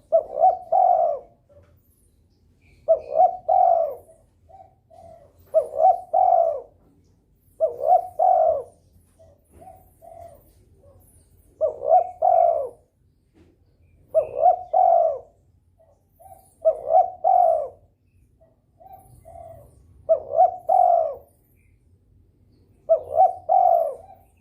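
A derkuku dove in breeding condition cooing steadily: a short phrase of low coos about every two and a half seconds, about nine times, with a few softer single notes between.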